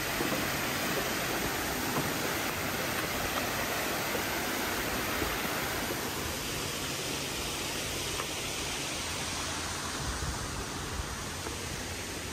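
Swimming pool waterfall: a steady rush of falling water splashing into the pool, easing off a little in the second half.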